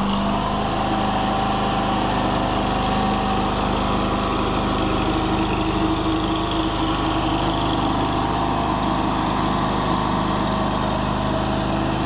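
Small engine of a stand-on mini skid steer loader running steadily at working speed while the machine pivots in place.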